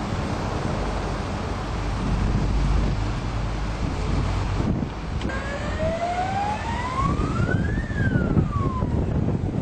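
Wind on the microphone and a low rumble around the Cornish beam winding engine's turning drum. Halfway through, a single whine rises steadily in pitch for about two and a half seconds, then falls away.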